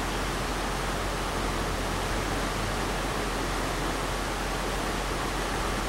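Steady rush of a shallow trout stream's current flowing over a rocky riffle, an even hiss with no breaks.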